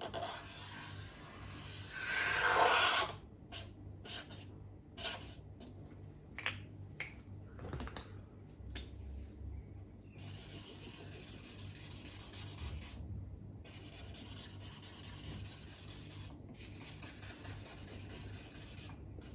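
Hand-writing sounds: a writing tool rubbing and scratching across the writing surface as the letter 'o' is traced, one louder stroke about two seconds in, then short separate strokes, then a long stretch of steady scratching from about halfway, broken by brief pauses.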